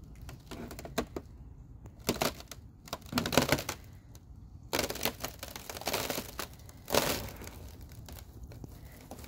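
Boots stepping across thin puddle ice, the ice crackling and breaking under each step in a run of brittle bursts about a second apart, loudest about three seconds in and again near seven seconds.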